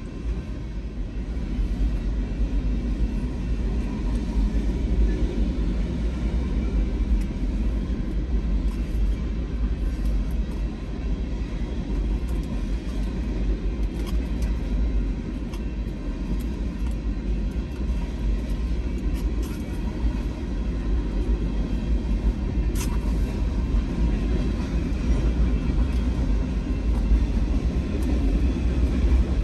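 A train rolling past with a steady low rumble.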